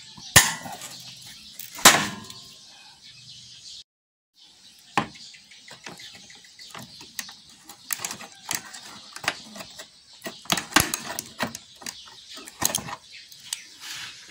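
Vice grips (locking pliers) clamping onto and turning a rusted, stripped screw in a scooter's metal seat frame: two sharp metallic snaps in the first two seconds, then a run of small clicks and scrapes as the screw is worked loose.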